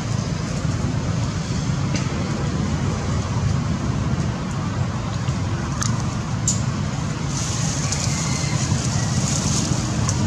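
Steady, low rumbling outdoor background noise, with a few faint ticks about six seconds in.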